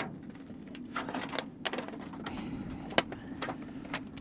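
Clear plastic clamshell container being handled and opened with gloved hands: a series of sharp plastic clicks and crackles, the loudest about three seconds in, over steady low background noise.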